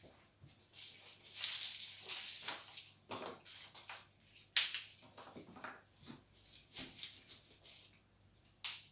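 Rustling of tulip leaves and flower stems being handled and set into a potted arrangement, with a few short clicks; a sharp click about halfway through is the loudest, and another comes near the end.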